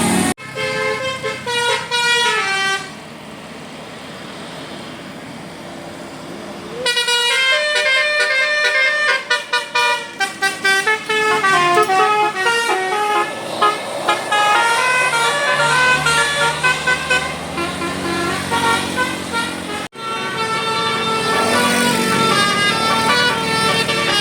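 Tour bus telolet basuri multi-tone horn playing quick tunes of stepping notes. The sound breaks off abruptly and restarts several times, with a quieter stretch between about three and seven seconds in.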